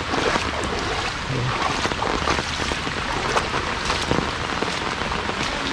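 Rain falling on floodwater and wet grass, with irregular splashes of footsteps wading through shallow floodwater.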